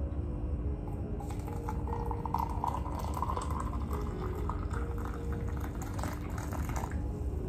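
Soft background music with a steady rushing, water-like noise over it.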